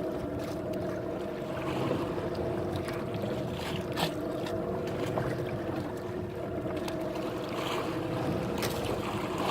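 Boat engine running steadily, with a sharp knock about four seconds in.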